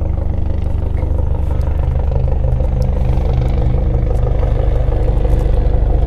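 Helicopter flying close by: a steady low rotor thrum with a fast, even pulse, slowly growing louder.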